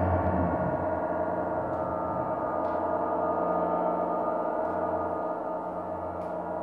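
Modular synthesizer sounding a sustained drone: a dense stack of steady overtones over a low hum, easing slightly in level near the end.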